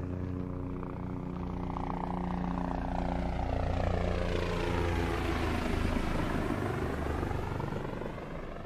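An aircraft flying over: a steady engine drone that swells toward the middle and eases toward the end, with a sweeping, phasing sound as it passes.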